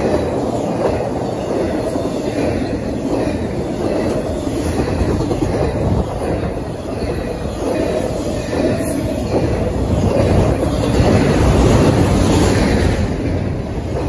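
Double-stack intermodal container cars of a CSX freight train rolling past, their steel wheels running on the rails in a continuous loud noise that grows somewhat louder about ten seconds in.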